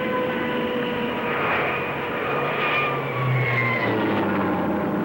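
Avro 748's Rolls-Royce Dart turboprop engines running with a steady whine that slowly falls in pitch. Near the end it gives way to a lower drone.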